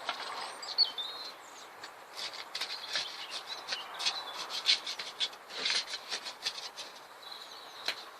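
Small birds chirping, over a run of short dry scrapes and clicks from soil being worked.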